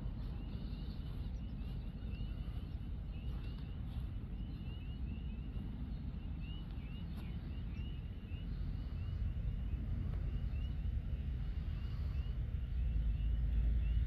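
Outdoor field ambience: a steady low rumble that swells near the end, under a continuous chorus of short, high, rising peeps repeating several times a second.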